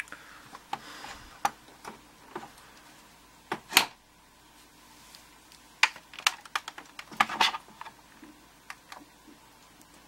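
Scattered small clicks and knocks of hard objects being handled, with a louder knock a little under four seconds in and a run of clicks between about six and seven and a half seconds.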